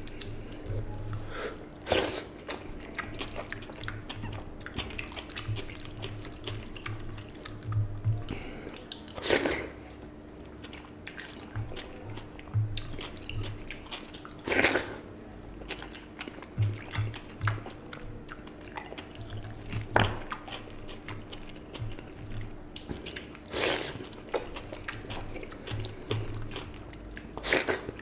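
Close-miked eating by hand: fingers squishing watery soaked rice (panta bhat) and lentil mash on a plate, with chewing and wet mouth sounds. About six sharp wet clicks are spaced a few seconds apart.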